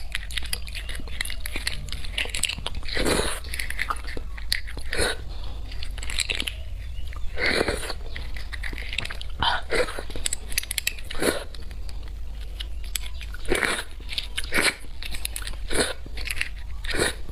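Close-miked eating of spicy beef bone marrow: chewing and wet mouth clicks, with louder short bursts every two seconds or so as marrow is taken from the bone, over a low steady hum.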